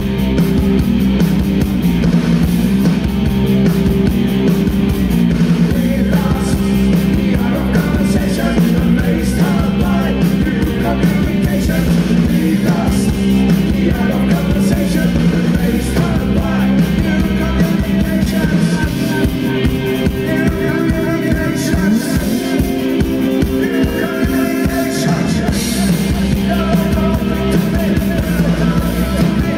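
Post-punk band playing live: electric guitar, bass and drums, with a man singing.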